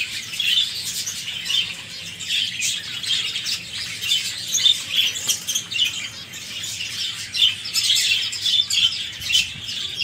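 Small cage birds, white Java sparrows among them, chirping continuously: many short, high calls overlapping one another.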